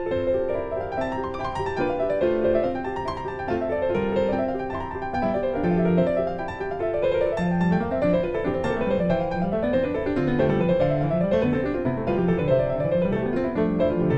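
Background piano music: quick arpeggios running up and down over sustained low notes.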